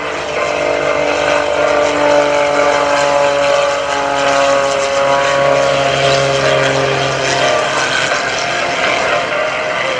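MX-2 aerobatic airplane's modified Lycoming piston engine and MT propeller running at high power on a low pass, the engine note slowly falling in pitch and a little quieter near the end.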